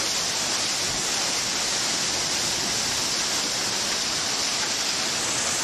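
Heavy wind-driven rain of a storm, a steady even hiss with no breaks.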